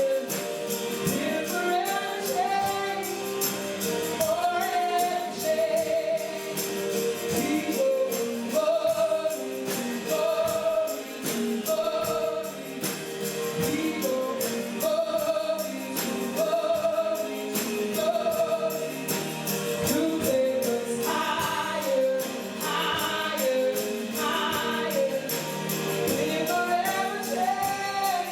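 Gospel-style worship music: several voices sing sustained, wavering lines over a band with a steady beat.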